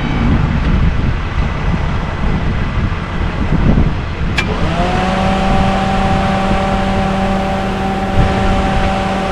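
Caterpillar 329E excavator running with a steady low rumble. About four seconds in there is a click, then a whine rises quickly and holds as a steady hum.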